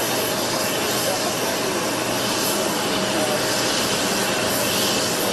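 Jet aircraft engines running steadily: a continuous roar with a constant whine held on one pitch.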